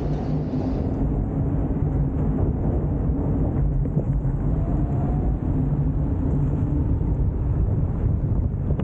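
Electric scooters riding along a path: a steady low rumble of wind on the microphone and tyre noise, with a faint steady hum underneath.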